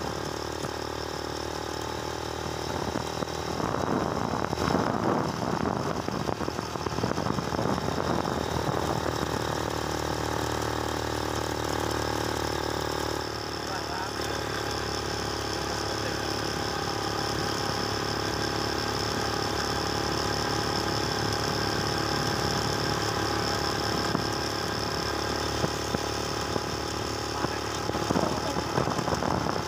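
Motorcycle engine running steadily at cruising speed, with road noise, while riding along. The engine note shifts slightly about halfway through.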